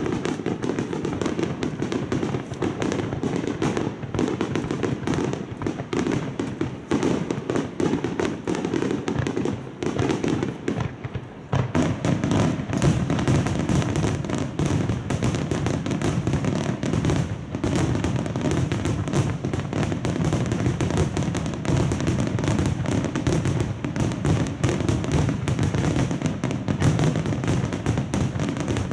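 Fireworks finale barrage: wide star-mine shells bursting in rapid, unbroken succession, a dense mass of overlapping booms and crackles. It eases slightly about ten seconds in, then picks up again.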